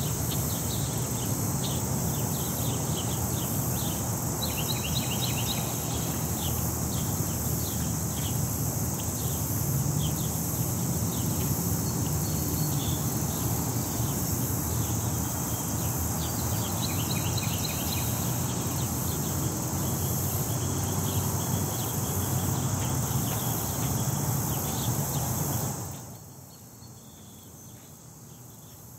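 Park ambience: a steady high drone of insects with scattered short bird chirps over a low rumble of city traffic. It all drops away to a much quieter hush near the end.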